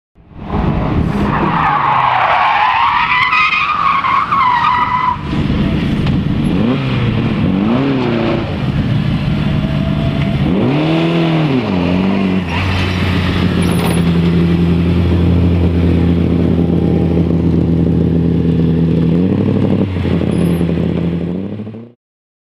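Lada 2107 rally car's tyres squealing with a high, wavering note through a corner. Then its engine revs rise and fall twice and hold steady at high revs, before the sound cuts off suddenly near the end.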